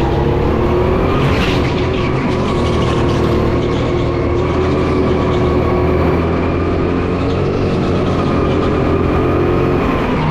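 Go-kart engine running hard at steady high revs, its pitch climbing gently over the first few seconds and then holding.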